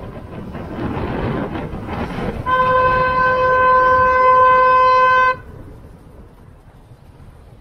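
A vehicle horn held in one loud, steady blast of about three seconds, starting a couple of seconds in and cutting off abruptly. Around it is the wind and road rush of a moving motorcycle.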